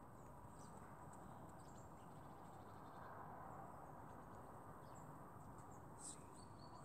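Near silence: faint steady background hiss, with a faint short high tick about six seconds in.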